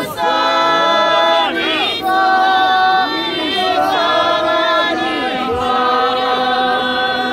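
A group of men and women singing together without instruments, several voices holding long, slightly wavering notes phrase after phrase.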